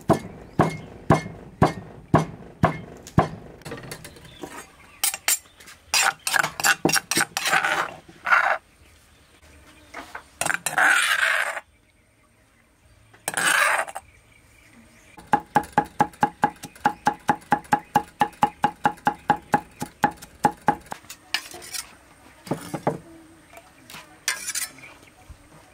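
A stone pestle pounding in a stone mortar, about two strokes a second, then faster, followed by a couple of scraping sounds. Later a cleaver chops fast and evenly on a wooden chopping block, about five strokes a second. Near the end come a knock and the blade scraping chopped chilies across the block onto a plate.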